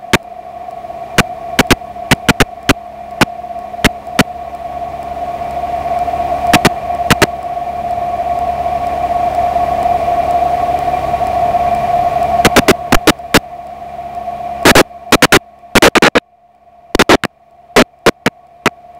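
Tiger Moth takeoff heard through the aircraft's intercom audio line rather than as open engine sound: steady hiss with a constant whine that swells over the first dozen seconds, broken by many sharp crackling clicks. There is a short drop-out near the end.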